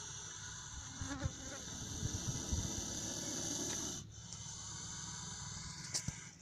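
Insects chirring in a steady high-pitched drone. It cuts off abruptly about four seconds in and returns fainter, over a low rumble.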